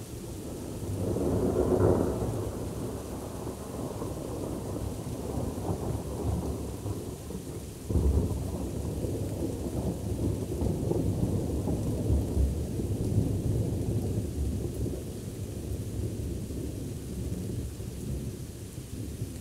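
Thunder rumbling: a roll swells and peaks about two seconds in, then a sharper clap about eight seconds in rolls on for several seconds and slowly dies away.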